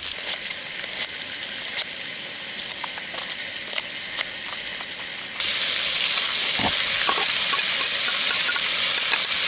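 Fish fillets frying in bacon grease in a skillet on a propane camp stove, sizzling steadily, with sharp taps of a knife on a wooden cutting board as an onion is chopped. About five seconds in the sizzle suddenly gets louder and denser as the chopped onion goes into the hot pan.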